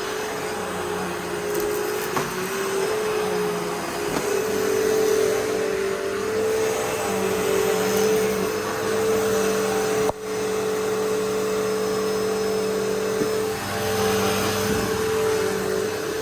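Hoover Elite Rewind upright vacuum cleaner running steadily in use, its motor hum wavering slightly in pitch as it is pushed about, with a brief dip about two-thirds of the way through.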